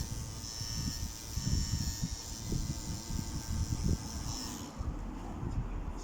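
Tattoo machine buzzing steadily, then stopping about three-quarters of the way through, over irregular low rumbling.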